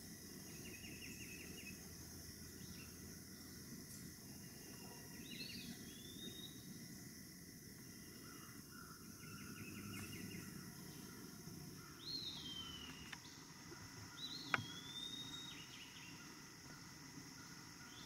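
Quiet woodland sound: a steady high insect drone, with wild birds giving a few short trills and three whistled calls that swoop up and then fall away. A little past the middle comes one sharp click, the loudest sound.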